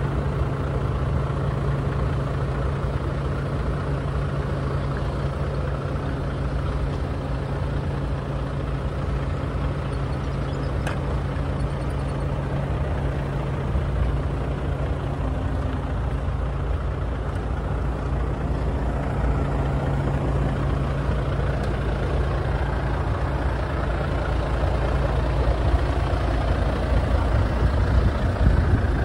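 Heavy truck diesel engine idling steadily: a constant low drone with an even hum over it.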